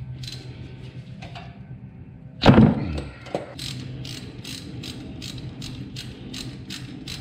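Ratchet wrench loosening the engine oil drain plug of a Can-Am Spyder F3T: a loud crack about two and a half seconds in as the plug breaks loose, then even ratchet clicks, about three a second.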